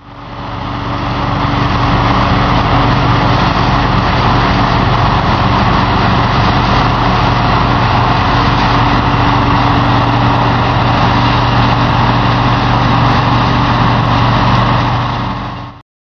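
Large farm diesel engine running steadily with a constant hum and broad machinery noise. It fades in over the first two seconds and stops abruptly near the end.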